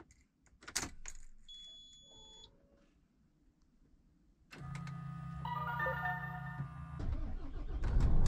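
Inside a lorry cab: a few clicks and a short high electronic beep, then a steady low hum with a run of chime-like tones, and the lorry's engine starting with a rising low rumble near the end.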